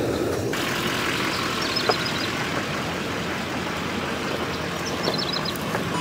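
Pickup truck engine idling, a steady rumble and hiss.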